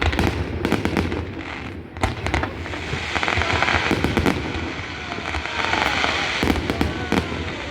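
Fireworks going off: a rapid run of sharp bangs in the first couple of seconds, then a steady hiss with faint whistles, and a few more bangs near the end.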